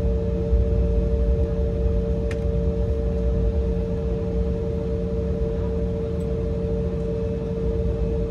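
Steady drone inside the cabin of an Embraer E175 regional jet, a low rumble with a constant hum, and one faint click a couple of seconds in.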